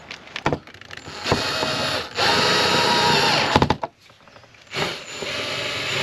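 Cordless drill-driver driving screws into a caravan window frame, running in three bursts of one to two seconds each, with a few clicks between them.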